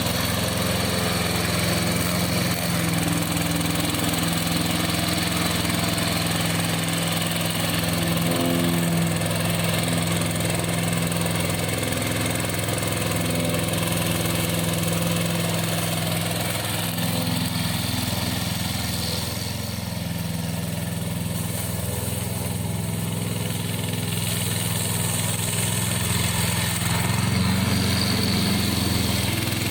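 Engine of a crawler remote-control slope mower with an 800 mm cutting deck running steadily, easing slightly about twenty seconds in and picking up again near the end.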